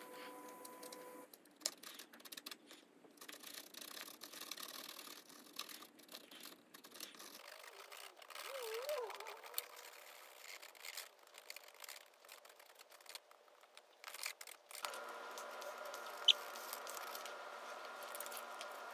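Hot soldering iron tip working stainless steel mesh into melted plastic, heard as faint scattered clicks and small scraping ticks. In the last few seconds a faint steady hum sits underneath.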